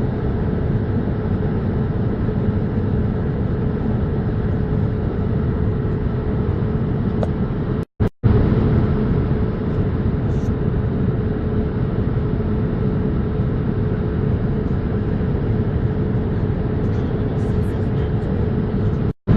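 Steady cabin noise inside a Boeing 787-8 airliner: a constant low drone with a steady hum, broken by a brief silence about eight seconds in.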